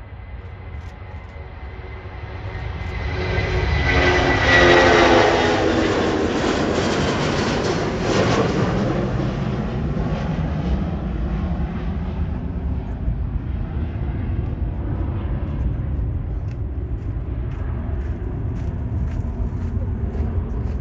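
Jet airliner passing close by. The engine noise builds to its loudest about four to five seconds in, with a high whine that drops in pitch as it goes past, and is followed by a steady low rumble.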